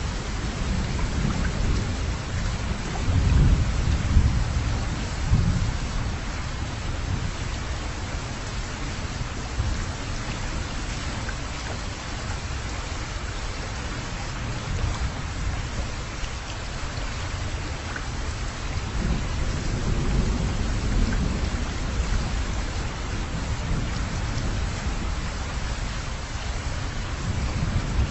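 Wind and road noise from a moving car: a low, gusting rumble that swells and fades over a steady hiss.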